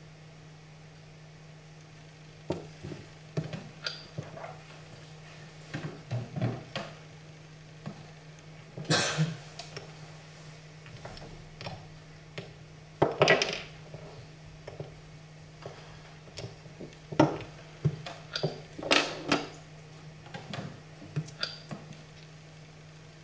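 Wooden chess pieces knocking and clicking against a wooden board and table as they are moved and handled, in irregular knocks with several sharper ones. A steady low hum runs beneath.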